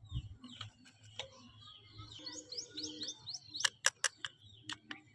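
Bird chirping: a quick run of short rising chirps, about five a second for about a second midway, with a few sharp clicks a little after it.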